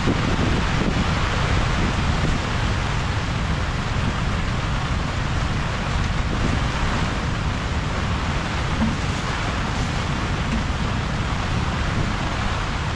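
Steady noise of a severe tropical storm: heavy rain and strong wind, with the wind rumbling on the microphone.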